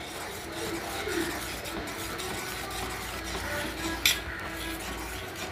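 Steel spoon stirring a thick carrot halwa mixture in a stainless steel pan, with a sharp clink of spoon on pan about four seconds in and another near the end.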